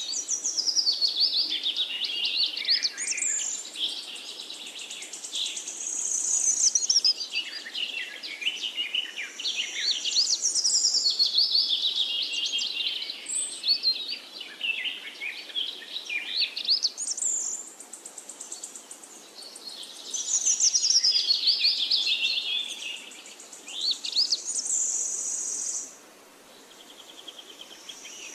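Several songbirds singing together in forest, a dense chorus of overlapping whistled phrases and trills over a faint background hiss. The song briefly drops away near the end.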